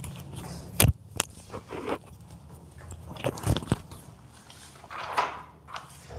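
Rustling and about four sharp knocks of a clip-on microphone being unclipped and handled, with a softer rustle about five seconds in.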